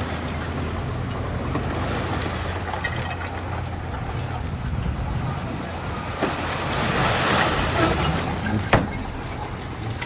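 Diesel engine of heavy earthmoving machinery running steadily, growing louder between about six and eight seconds in, with one sharp clank near the end.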